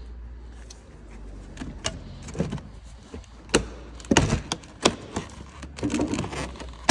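A string of sharp clicks and knocks from a car door's handle, latch and trim being worked, with several louder clacks in the middle of the run, over a low steady hum.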